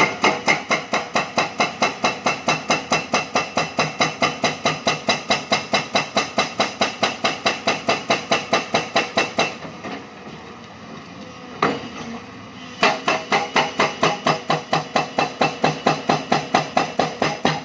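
Excavator-mounted hydraulic breaker hammering limestone rock, a rapid even run of blows at about five a second. The blows stop for about three seconds just past the middle, leaving the machine running, then start again.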